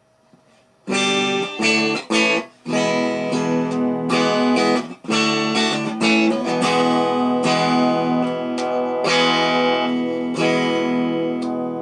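Amplified Telecaster-style electric guitar from a DIY kit, strummed: after about a second of quiet, a few short chord stabs, then steady rhythmic chords. It is a sound check with the pickup just raised closer to the strings, and the player still finds the tone a little tinny and high-pitched.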